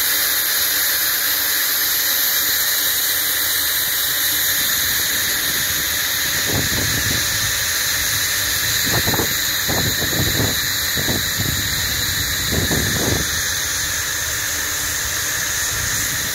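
Steam locomotive No. 5485 hissing steadily and loudly as steam escapes around its cylinders. A few irregular low thuds come in the middle.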